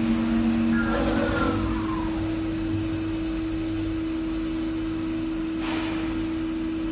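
CNC metal spinning machine running with a steady motor hum. About a second in, a short squeal falls in pitch, and near the end there is a brief hiss.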